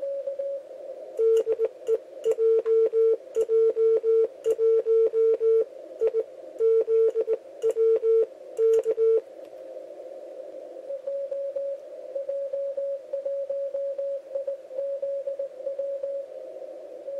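Morse code on an amateur radio transceiver. A loud sidetone beeps dots and dashes for about eight seconds, with a click at each keying. Then a fainter, slightly higher-pitched Morse signal comes through a steady hiss of band noise.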